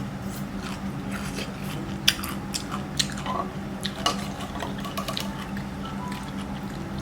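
Close-miked eating sounds: wet chewing and crunching with sharp mouth and cutlery clicks, the loudest about two, three and four seconds in, over quiet background music with a steady low drone.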